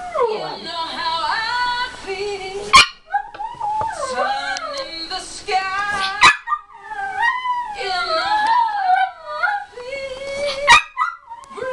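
Chihuahua howling and whining along to a woman singing on the TV, with three short, sharp yips.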